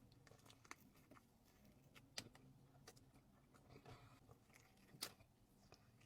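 Faint close-up eating sounds: quiet chewing with a few sharp, crisp clicks and crunches spread irregularly, the loudest about two seconds in and about five seconds in.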